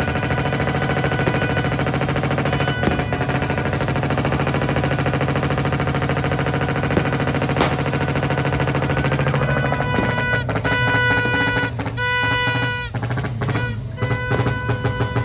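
Rapid crackling of firecrackers going off in quick succession, like machine-gun fire, mixed with music. About ten seconds in, the crackling thins and held musical notes come to the fore.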